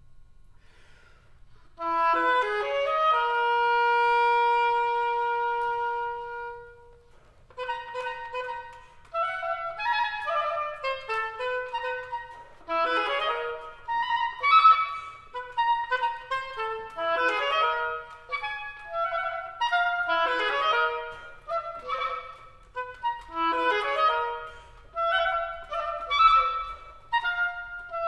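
Solo oboe playing: after a brief quiet moment, a quick rising run leads into one long held note that fades away, then fast, rippling runs of notes follow.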